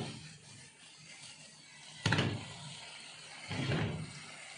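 Heavy granite-coated pan set down on a gas stove's burner grate: a sharp metal clunk about two seconds in, then a softer knock about a second and a half later.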